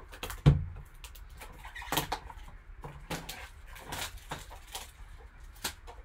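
Plastic shrink-wrap being ripped off a sealed 2019 Topps Archives Signature Series cardboard card box and the box opened: a run of crinkles, rips and snaps, with a heavier thump about half a second in.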